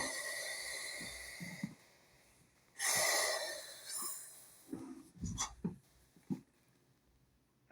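Subway car giving off two hisses of compressed air while stopped at the platform. The first, with a faint whistle in it, fades about two seconds in. A shorter hiss follows about three seconds in, then a few faint knocks.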